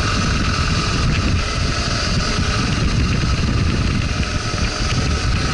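Motorcycle engine running at a steady pace while riding, with wind rumbling on the microphone.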